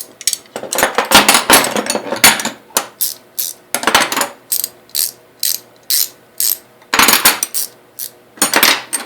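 Ratcheting combination wrench swung back and forth by hand, its fine-toothed ratchet ring freewheeling in short buzzing runs of rapid clicks, about one run a second, with a few longer runs. The clicking is light and even, showing a smooth ratchet action.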